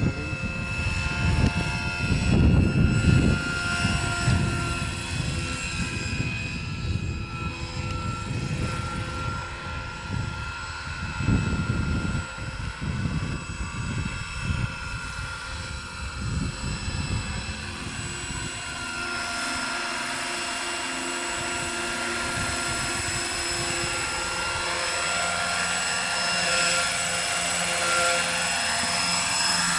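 Electric-converted scale-model EC145 RC helicopter in flight: a steady whine from its Kontronik brushless motor and drive train over rotor blade noise, with the main rotor at about 1280 rpm headspeed. A gusty low rumble comes and goes in the first half, and the tones bend up and down in pitch near the end as the helicopter flies close past.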